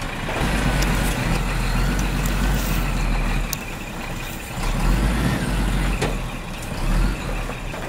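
Plastic toy truck's wheels rolling along a wooden plank as it is pulled on a string: a low rumble that comes and goes, with a few clicks.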